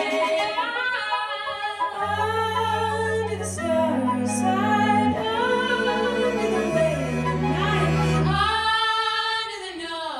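Three women's voices singing in close harmony over low held notes that step to a new pitch every second or two. The sound thins out briefly near the end.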